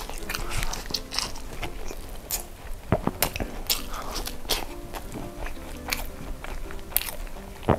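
Eating sounds: a bite into sauce-glazed fried chicken with a handful of rice, then chewing with sharp mouth clicks scattered irregularly.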